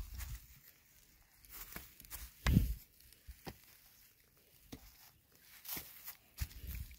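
Footsteps crunching and rustling through dry grass and straw, with scattered clicks and one louder thump about two and a half seconds in.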